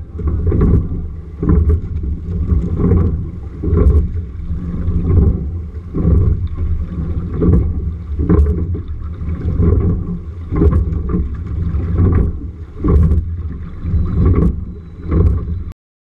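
Single racing scull under way: a steady low wind-and-water rumble on the boat-mounted microphone, with regular knocks and splashes from the sculls, about one a second, as the rower strokes. The sound cuts off suddenly near the end.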